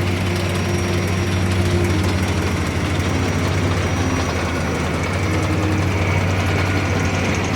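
Boxer eight-wheeled armoured vehicles driving past, their diesel engines making a steady, loud low drone.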